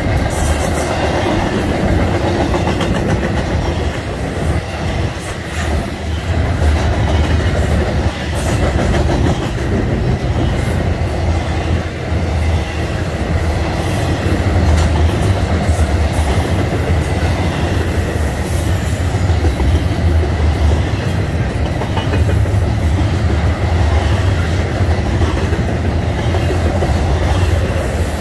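Double-stack container well cars of a freight train rolling past, their steel wheels rumbling steadily on the rails, with a faint high ring held throughout.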